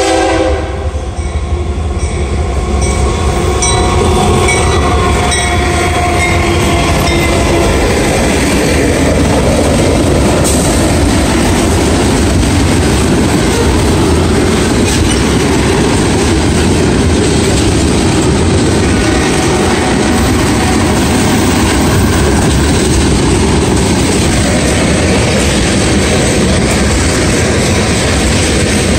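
Union Pacific diesel-hauled freight train passing close by. A horn chord cuts off right at the start, and the locomotives go by in the first few seconds. Then a long string of loaded ethanol tank cars rolls past with a steady rumble and clatter of wheels on the rails.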